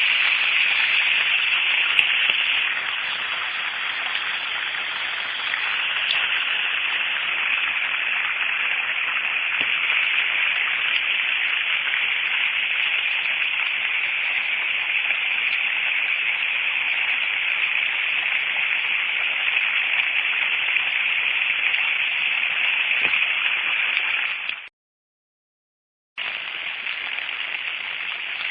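Steady hiss of water, rain or flowing floodwater, even throughout with no distinct splashes or drops. It breaks off abruptly for about a second and a half near the end, then resumes.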